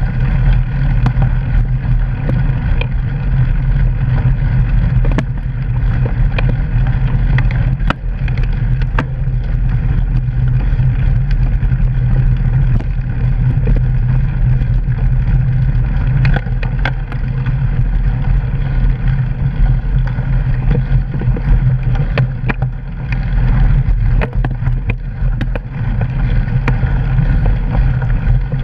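Mountain bike rolling over a muddy gravel trail, picked up by a camera mounted on the bike: a steady low rumble of tyre and wind noise, with frequent sharp clicks and rattles.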